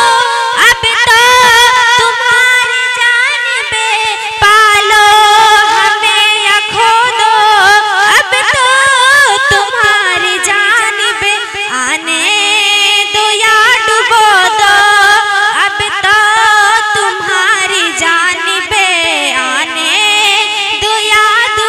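A girl singing a naat, an Urdu devotional song, solo into a handheld microphone with no instruments: one long, ornamented melody with held, wavering notes and pitch slides.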